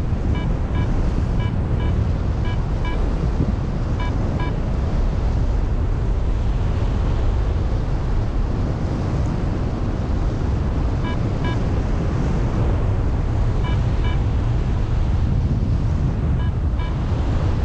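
Wind rushing over an action camera's microphone in flight, with a paragliding variometer giving groups of quick, short beeps on and off, its signal for rising air.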